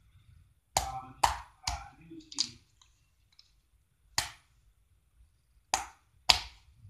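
Slime being pressed and slapped against a tile floor, giving sharp clicking pops: seven in all, spaced irregularly, two near the end close together.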